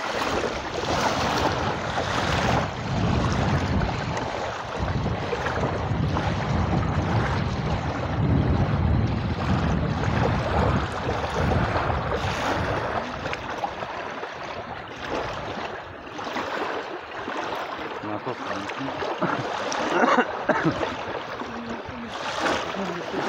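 Small waves lapping at a lake shore, a steady wash of water.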